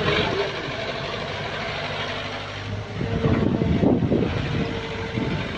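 Mini excavator's engine running under hydraulic load while the machine digs and swings its arm and bucket across. It runs fairly evenly at first, then gets louder and rougher from about three seconds in as the arm swings over.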